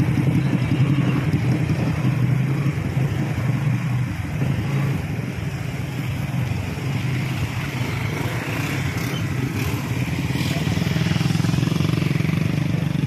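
Motorcycle engine idling steadily, over the continuous rush of a shallow, fast-flowing river.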